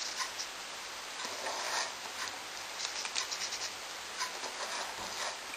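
Faint scattered small clicks and rustles over a steady background hiss.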